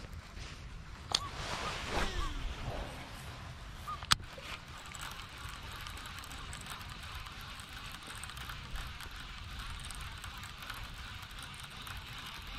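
Daiwa Tatula TW100 baitcasting reel: a cast with the spool whirring and falling in pitch, a sharp click about four seconds in, then steady reeling with a fine whirring tick. Low wind rumble on the microphone underneath.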